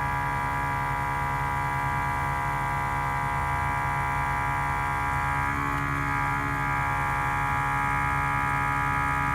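Motorcycle air-ride suspension compressor running steadily, an even electric whine, pumping up the air bags to raise the bike so the center stand retracts.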